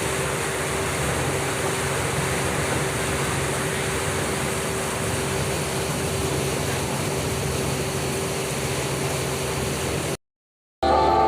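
Steady rushing noise with a constant low hum and a steady mid-pitched tone under it, like machinery or a vehicle cabin. It cuts off abruptly near the end.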